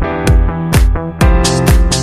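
Electronic dance music with a steady four-on-the-floor kick drum, about two beats a second, under held synth chords.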